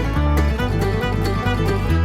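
Background music: upbeat bluegrass-style tune with plucked banjo and guitar over a steady bass.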